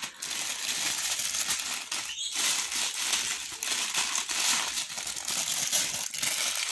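Tissue paper crinkling and rustling as a hand pulls the wrapping off packed items in a box, nearly continuous with a brief pause about two seconds in.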